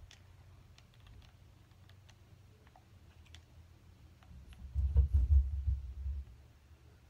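Game controller buttons and sticks clicking now and then. About five seconds in, a low rumble swells up and lasts about a second and a half.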